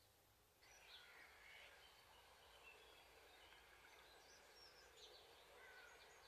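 Very faint outdoor background with scattered short bird chirps. It starts about half a second in, after near silence.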